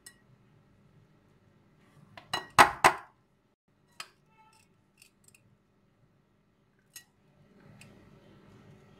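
Metal utensil scraping and clinking against a ceramic dish while scooping rice filling. A cluster of loud clinks comes about two to three seconds in, then single clicks around four, five and seven seconds, and a soft rustle near the end.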